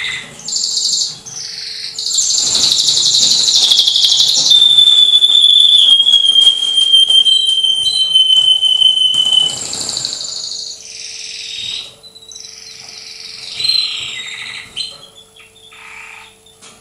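Male canary singing its courtship song loudly. Fast rolling trills give way about four seconds in to one long, slightly falling whistled note lasting some five seconds, followed by shorter phrases with gaps between them.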